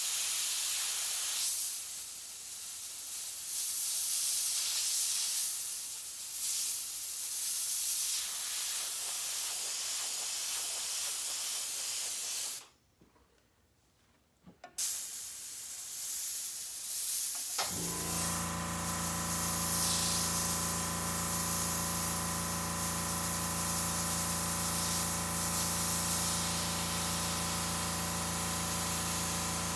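Airbrush spraying paint with an airy hiss that rises and falls, broken by about two seconds of near silence just before halfway. A little past halfway a steady low hum with several tones starts and runs under the hiss.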